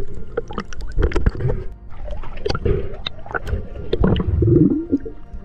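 Underwater sound picked up by a submerged camera: muffled gurgling and low rumbles with many sharp clicks scattered through.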